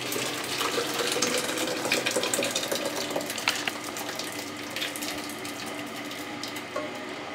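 Hot cooked lentils (daal) with tomatoes poured from a pot into a plastic blender jug. The thick liquid splashes into the jug with many small wet clicks, slowly getting quieter as the jug fills.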